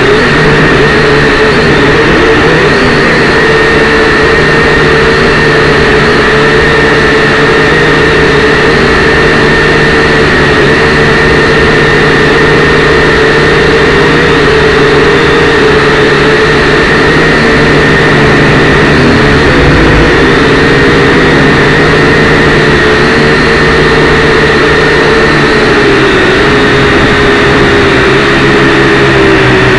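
Syma X5W toy quadcopter's motors and propellers whining steadily and loudly, heard from the drone's own onboard camera while it hovers and flies. The pitch sags near the end as the motors slow.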